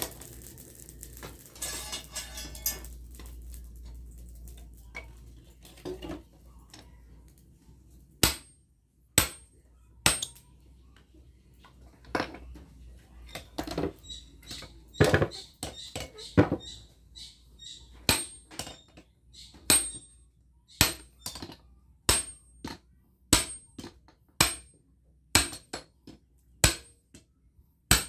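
Sledgehammer blows onto a handled forging tool held against a red-hot steel bearing ring on an anvil. Each blow is a sharp metallic strike with a high ring. The strikes begin a few scattered about a third of the way in, then settle into a regular beat of about one a second. Before the hammering starts there is a steady rushing noise from the forge, with a few clinks of tongs and metal.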